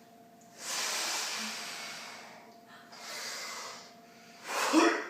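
A person blowing hard through pursed lips, pretending to be the wolf blowing the house down. There are two long, hissing blows, the first lasting about two seconds and the second about one, and a short burst of voice comes near the end.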